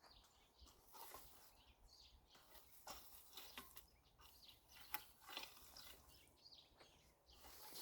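Near silence, with faint scattered clicks and scrapes and one slightly sharper click about five seconds in.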